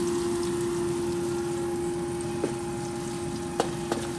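Garlic and onion sautéing in a frying pan, a steady sizzle over a constant low hum, with three light clicks of a utensil against the pan in the second half.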